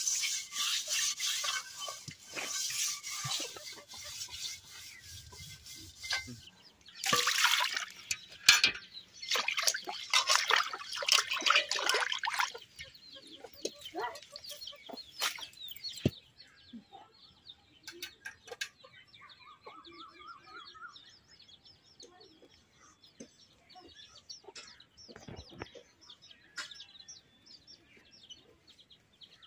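Metal wok (kadai) being scrubbed by hand with gritty water, a rough rasping scrape in two long stretches. After the scrubbing stops, chickens cluck.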